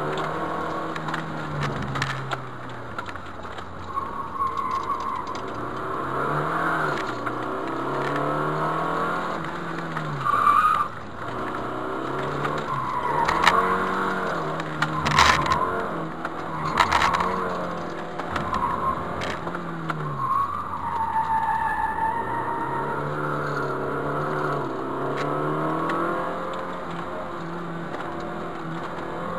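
Car engine revving up and dropping back again and again as the car is driven hard through tight slalom turns. The tires squeal several times through the middle of the run.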